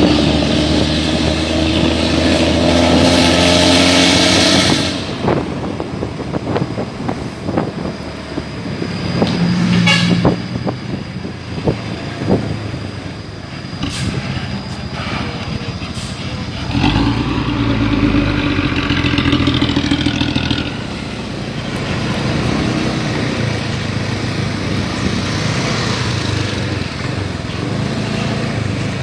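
Luragung Rahmawati bus engine revving through its 'ngorok cempreng' exhaust, the snoring, tinny exhaust note typical of Luragung buses. It is loud for the first few seconds, drops back, revs up again for a few seconds about two-thirds of the way through, then runs more steadily.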